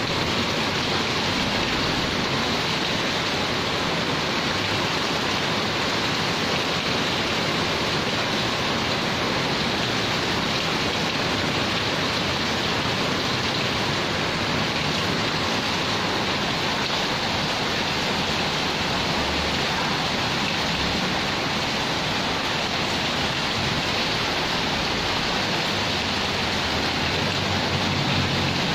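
Heavy rain falling steadily on a concrete yard, an even, unbroken hiss.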